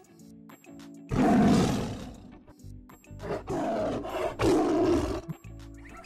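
Three loud, rough animal calls over steady background music: a long one about a second in, then two shorter ones a few seconds later.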